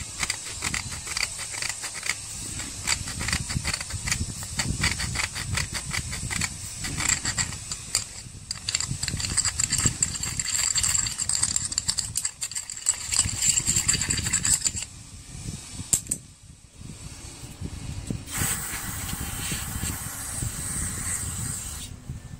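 A screwdriver scraping and clicking around the inside of a Tecumseh carburetor's metal float bowl, working crud loose so the bowl will seal tightly on its gasket. Near the end an aerosol spray can with a straw hisses steadily for a few seconds.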